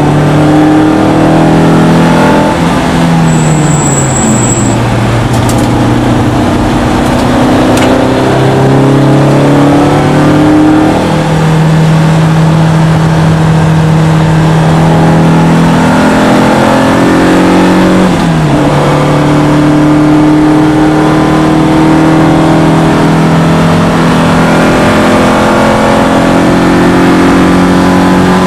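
BMW E30 M3's S14 four-cylinder engine heard from inside the cabin at racing speed, running high revs. Its pitch falls away a few seconds in, climbs again around eleven seconds in, and drops sharply at a gear change near eighteen seconds in.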